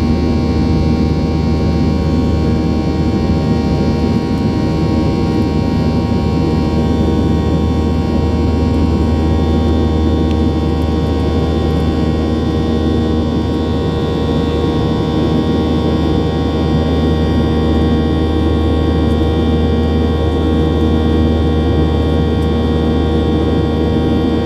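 Boeing 737-800's CFM56-7B turbofan engine and airflow heard inside the cabin during the climb after takeoff: a steady loud roar with several steady whining tones. A high whine shifts slightly lower in pitch and grows stronger partway through.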